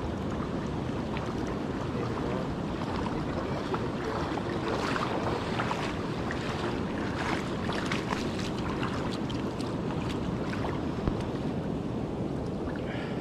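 River water running over gravel shallows, with wind buffeting the microphone. Scattered short splashes and knocks in the middle, and one sharp tick near the end.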